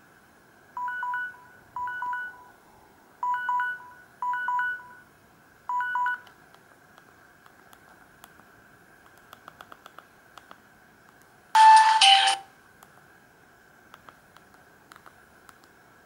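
Samsung GT-C3212 keypad tones: five short two-note beeps in the first six seconds as buttons are pressed. They are followed by a run of faint clicks and then one louder, brief two-note sound.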